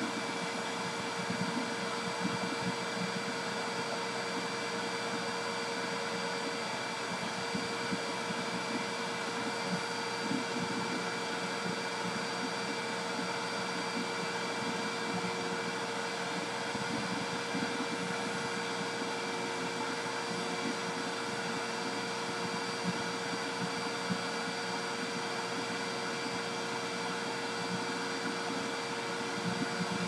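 Vacuum cleaner running steadily: an even rushing noise with a constant motor whine at several pitches, one of which shifts slightly about six seconds in.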